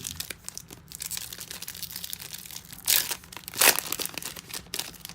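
Crinkling foil wrapper of a trading-card pack being handled and torn open, with two sharper, louder rips about three seconds in and just before four seconds.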